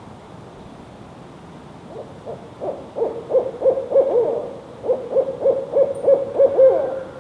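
Male barred owl calling: a fast series of hoots starting about two seconds in, breaking off briefly in the middle, then a second run ending on a slightly drawn-out note.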